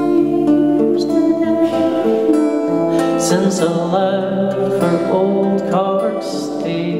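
Live music: a man singing over held instrumental notes, with plucked guitar.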